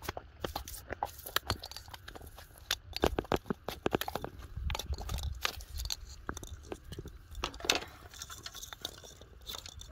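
A carp flopping on dry, cracked mud and being grabbed by hand: an irregular string of soft slaps, thuds and crunchy clicks, with one louder scuffle near the end.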